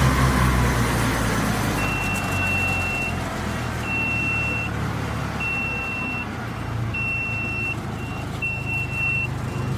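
Hydraulic wood chipper's engine running steadily, with a high electronic beep repeating roughly every second and a half from about two seconds in.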